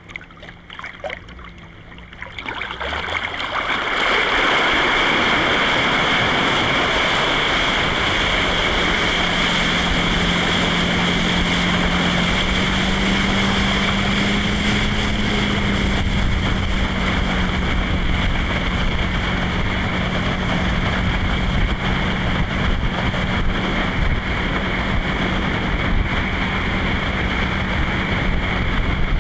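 Wind and rushing water loud on a water skier's helmet-mounted microphone, building up over a couple of seconds near the start as the skier is pulled up to speed behind the tow boat, then staying steady. A low, steady engine drone from the tow boat runs underneath.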